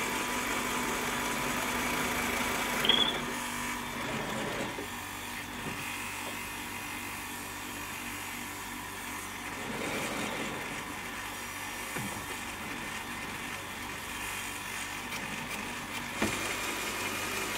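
Drill press motor running steadily as it drills holes into a wooden duduk body. A brief rising squeal comes about three seconds in, and sharp knocks come twice later on.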